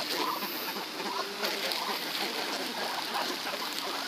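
A flock of white ibises and Muscovy ducks milling about close by, giving soft, scattered low calls over a steady background hiss.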